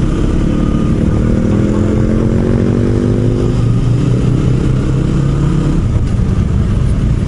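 KTM 125 Duke's single-cylinder four-stroke engine running while riding, its pitch climbing a little for a couple of seconds as it picks up speed and then holding steady, with wind noise rushing over the microphone.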